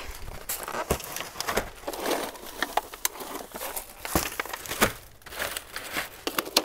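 Potted plants in plastic nursery pots being handled and moved: leaves rustling and plastic crinkling, with irregular crackles and light knocks.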